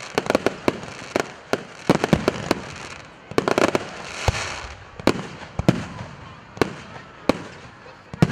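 Aerial fireworks going off: a string of sharp, irregular bangs from bursting shells, some coming in quick clusters, with crackling and hiss between them.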